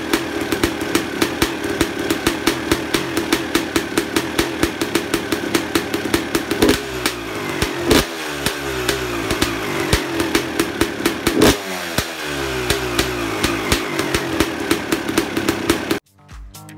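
Two-stroke Suzuki RM dirt bike engine, fitted with an FMF Shorty silencer on an FMF Gold Series SST expansion chamber, idling with a fast crackling beat, then blipped three times with the revs falling back each time. The sound cuts off suddenly near the end.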